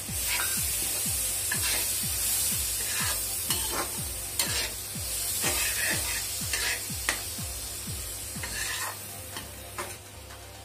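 Freshly added ground onion paste sizzling in hot oil and spices in an aluminium kadhai, stirred and scraped with a steel ladle. The sizzle is loudest in the first few seconds and eases toward the end as the paste starts to fry down.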